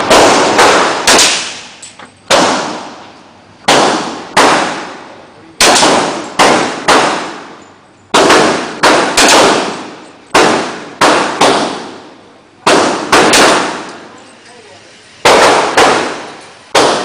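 Firearms being shot at a shooting range: about two dozen sharp shots in uneven groups, each ringing out with a long echo that fades over a second or so.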